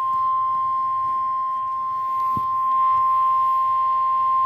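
NOAA Weather Radio warning alarm, the single steady 1050 Hz attention tone that announces a weather warning broadcast, held unbroken.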